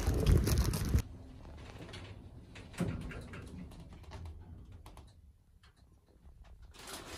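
Wind and street noise on the microphone that cuts off abruptly about a second in, giving way to a quiet small room with faint scattered clicks and one sharper knock.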